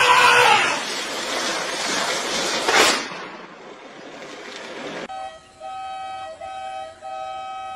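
An elephant trumpets at the start, followed by a loud rushing noise with a sharp crack a little under three seconds in. From about five seconds in a vehicle horn sounds in repeated blasts.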